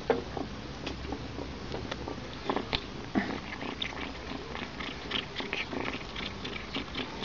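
Domestic cat purring steadily, with irregular small clicks and taps scattered over it.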